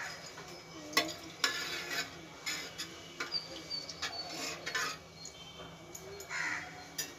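A spoon stirring dal, water and turmeric in a pressure cooker, knocking and scraping against the pot in a string of irregular clinks.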